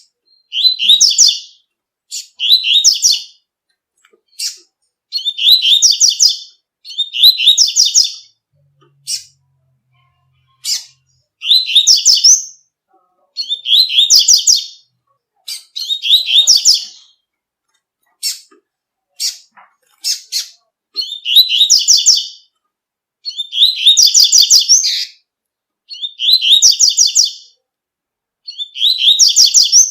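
Double-collared seedeater (coleiro) singing its tui-tui song: short, fast twittering phrases of about a second each, repeated every two seconds or so, with single sharp chirps in between.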